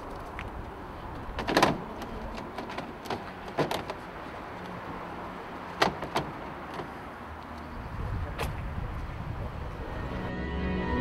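Hard plastic crates being stacked onto a flatbed truck: about five sharp knocks and clatters, the loudest near the start, over a steady low background. Music fades in near the end.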